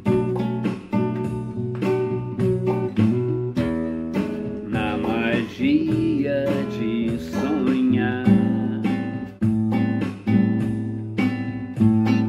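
Music: an instrumental passage of a song led by acoustic guitar playing over a steady bass line, with a wavering melody line about midway.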